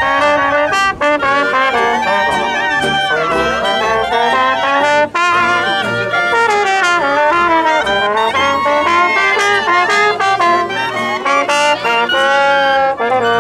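Band music with several instruments playing melody lines together, brass-sounding to the fore, in a jazz-like style.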